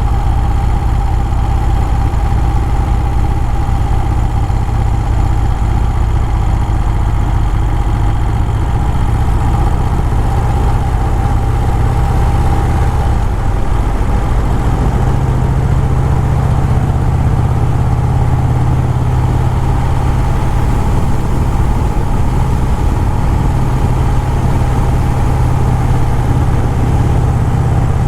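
Motorcycle engine running steadily; its low drone shifts up a little in pitch about halfway through.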